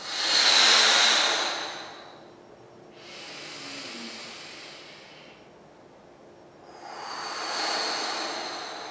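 A man breathing deeply in time with an active stretch: a long, smooth exhale as he moves into the stretch, a quieter inhale about three seconds in as he comes back to rest, then another long exhale near the end as he stretches again.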